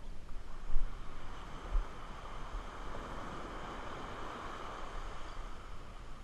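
Low surf washing up a sandy beach, with wind rumbling on the microphone and two brief low thumps about one and two seconds in.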